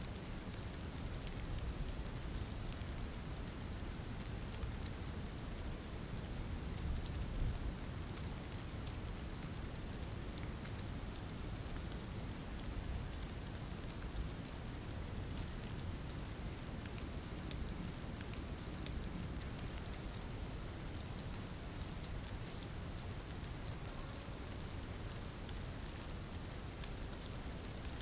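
Steady rain falling: a continuous dense hiss flecked with many small drop ticks, over a low rumble. It swells a little about seven seconds in.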